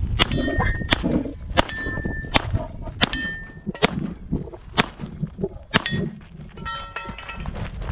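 A string of pistol shots from a CZ Shadow 2, about one every second or less, with struck steel target plates ringing after several of them.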